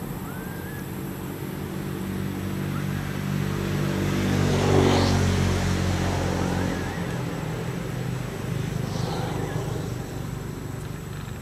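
A motor vehicle driving past: a low, steady engine drone that grows louder to a peak about halfway through, then fades away.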